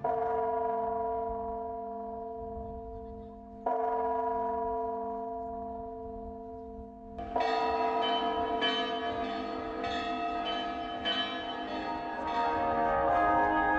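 A large church bell struck twice, about four seconds apart, each stroke ringing out and slowly dying away. About seven seconds in, a fuller, louder sound of many tones takes over and swells toward the end.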